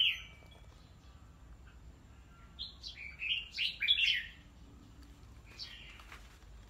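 Red-whiskered bulbuls calling: a short call right at the start, a quick run of chirpy, bubbling notes about three to four seconds in, and one more call near the end.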